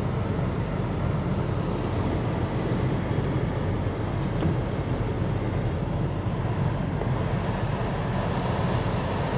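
Steady low rumble of a car under way, with road and engine noise heard from inside the cabin.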